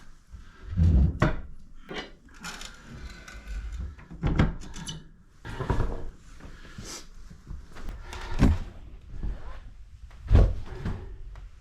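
Irregular wooden knocks and thuds with handling noise between them, about five heavier ones, as firewood is handled to get a fire going in the cabin's stove.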